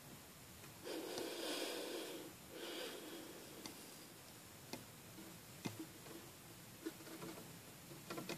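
Small scattered clicks and taps from a hamster on its wooden wheel in a cage, with two short breathy bursts between about one and three seconds in.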